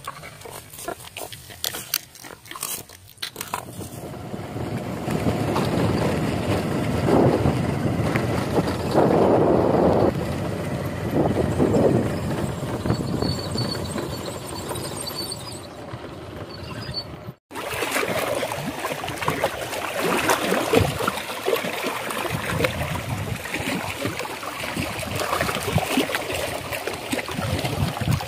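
Wind rushing over the microphone, with a few clicks near the start. After a short break about two-thirds of the way in, small waves lap and splash against shoreline rocks under the wind.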